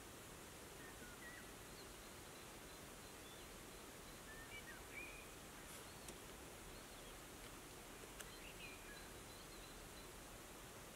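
Faint outdoor ambience: scattered short chirps of distant small birds over a steady background hiss, with two faint ticks partway through.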